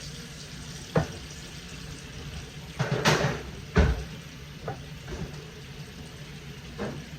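Kitchen handling noises: a sharp knock about a second in, a short scraping clatter at about three seconds, then a heavy thud, and a few lighter knocks after that, over a steady low hum.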